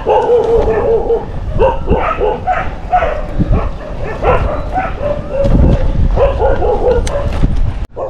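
Stray dogs barking and howling, with drawn-out, wavering cries. The sound cuts off suddenly near the end.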